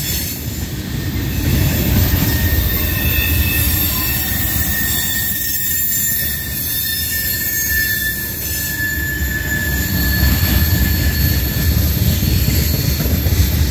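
Freight train's tank cars rolling past: a steady low rumble of wheels on rail, with thin high-pitched wheel squeal held over most of it.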